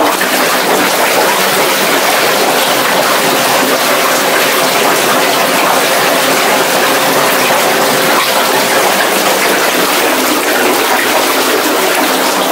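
Whirlpool bath with its bubble jets switched on: water churning and bubbling, loud and steady, with a faint steady motor hum underneath.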